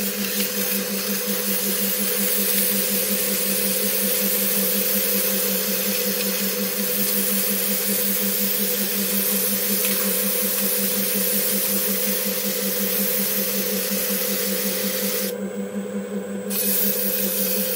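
120-grit sandpaper rubbing on a 3D-printed metal part spinning in a lathe, a steady, even hiss over the lathe's constant hum. The hiss stops about 15 seconds in, leaving only the hum, then returns for about a second near the end.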